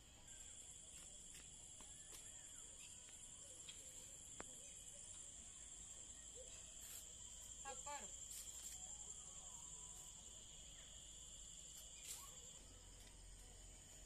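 Faint, steady high-pitched insect chorus from crickets, with a short pitched call about eight seconds in.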